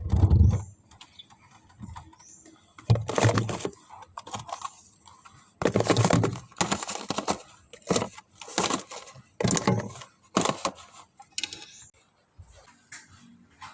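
Kitchen items being handled and set down: irregular knocks and clatters in short clusters, with quiet gaps between.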